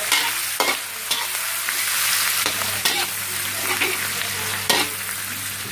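Sliced onions and dried anchovies sizzling in hot oil in a wok, a steady hiss, while a metal spatula stirs them, scraping and knocking against the wok every second or so.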